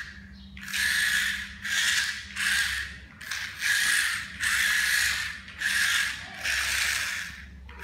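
Small geared DC drive motors of a hand-built RC car whirring and grinding in about eight short bursts, each under a second, as it is driven in spurts.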